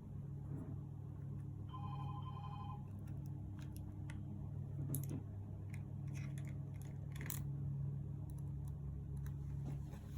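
A short electronic trilling ring, like a telephone ringer, sounds once about two seconds in over a steady low hum, with scattered faint clicks and taps through the rest.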